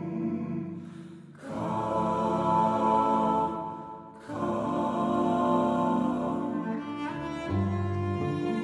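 Slow music of sustained bowed cello chords, possibly with voices. The chords fade and a new one swells in about a second and a half in, and again about four seconds in. A deeper bass note comes in near the end.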